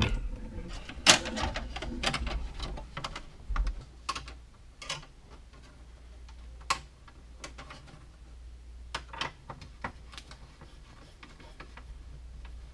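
Scattered light metallic clicks and taps of a screwdriver and wire in a breaker panel, as the hot wire is worked and secured in the breaker's screw lug. The sharpest click comes about a second in, and the rest are lighter and spaced irregularly.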